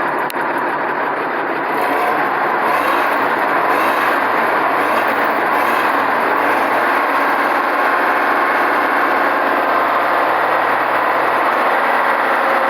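Mercedes-Benz OM 352 A six-cylinder diesel truck engine running, still without its turbocharger fitted. A little louder from about two seconds in, with its pitch wavering up and down for a few seconds before it settles.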